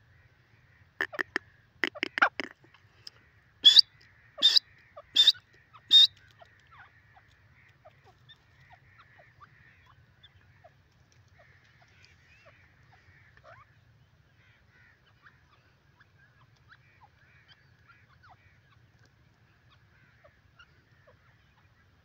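Grey francolin calling: a few short calls about a second and two seconds in, then four loud, harsh calls evenly spaced about three-quarters of a second apart, ending about six seconds in. After that only faint scattered chirps.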